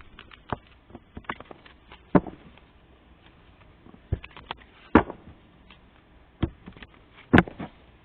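Tarot cards being handled and tapped: irregular sharp taps and light clicks, with three louder knocks spread through.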